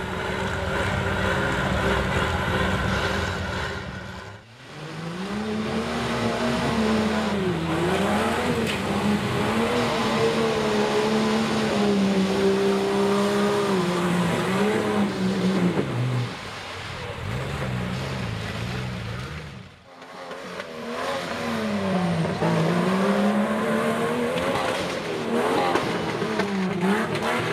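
Jeep engines revving hard through a mud pit, the pitch climbing and dropping with the throttle every few seconds. The sound breaks off abruptly twice, about four and twenty seconds in, where clips change.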